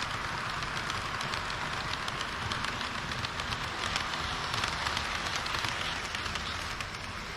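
HO-scale model train running on its track: a steady rolling rush of wheels on rail, peppered with many fine rapid clicks, a little louder in the middle and easing slightly near the end.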